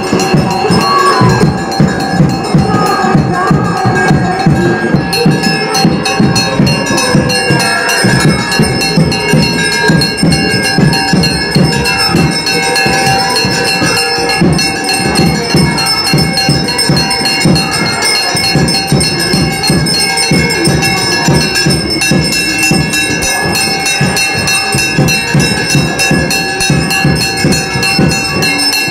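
Hindu temple bells ringing continuously during an aarti: a steady layer of ringing tones over fast, repeated strikes.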